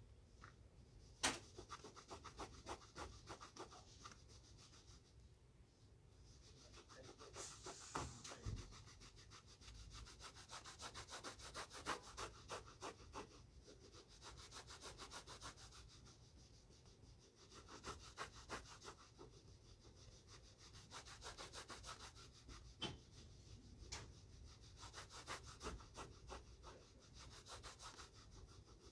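Shoes being buffed at a shoe shine: faint, quick back-and-forth rubbing strokes in runs of a few seconds, with short pauses between them.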